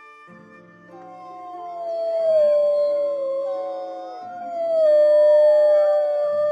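Wolves howling: long, slowly falling howls, the first starting about a second in, a second one coming in before the first ends and overlapping it, then dropping away near the end.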